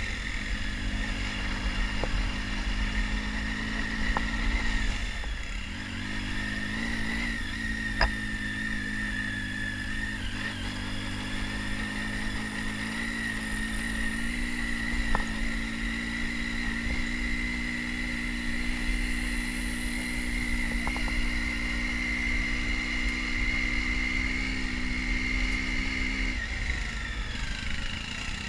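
Triumph Tiger 800 XC's three-cylinder engine running at a steady, low speed, its note shifting about five seconds in and falling away near the end. A steady high whine sits above it, with a few sharp clicks and knocks.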